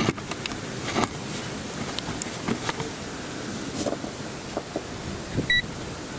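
Scattered clicks and knocks of handling, then near the end a single short high beep from a Digitech QM1552 digital multimeter as it is switched on.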